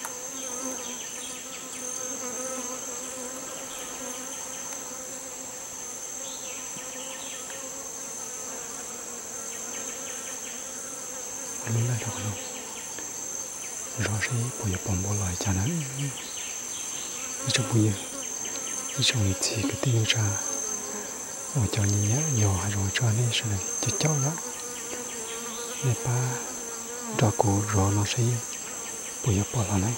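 Jungle insects droning steadily in a continuous high-pitched chorus. From about halfway through come irregular bursts of low bumping and rustling, which are handling and movement noise.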